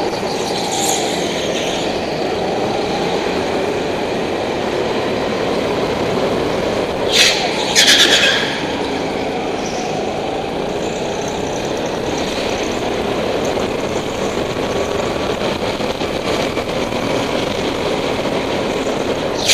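Go-kart's motor running hard through the laps, its pitch rising and falling with the throttle and corners. Two short high squeals about seven and eight seconds in.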